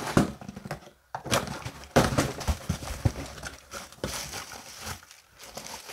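Cardboard shipping box being opened, then hands digging through crinkle-cut paper shred packing filler: irregular rustling and crinkling with a few sharper crackles.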